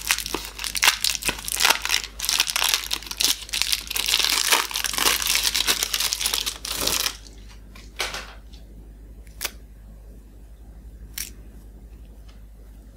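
A chocolate bar's gold foil wrapper crinkling and tearing as it is peeled open by hand, dense and continuous for about seven seconds. Then it quiets down, with a few sharp snaps as the bar is broken into pieces.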